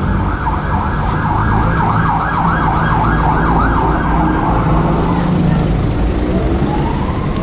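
Emergency vehicle siren yelping, its pitch sweeping up and down about three times a second, then fading away about five seconds in, over a steady low rumble of traffic. A single tone rising slowly starts near the end.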